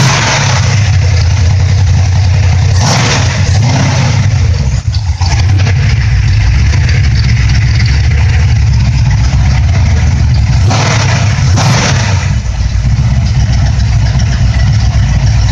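Freshly rebuilt 454 big-block Chevrolet V8 with a hydraulic roller cam and a four-barrel Holley carburettor, running near idle through long-tube headers and small 2.5-inch mufflers during its break-in, fully warmed with the thermostat open. It runs steadily, with brief louder moments about three seconds in and twice around eleven to twelve seconds.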